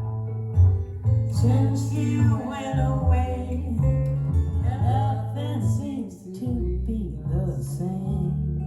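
A recorded song playing over B&W 802 Nautilus hi-fi loudspeakers, picked up by a phone microphone in the room: acoustic guitar over a bass line, with a singing voice.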